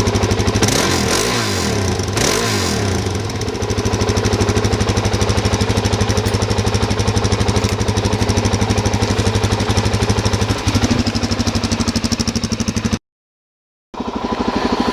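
Suzuki DR-Z400 single-cylinder four-stroke engine idling, blipped up in revs twice in the first few seconds and then settling to a steady idle. The sound cuts out completely for about a second near the end, then the idle resumes.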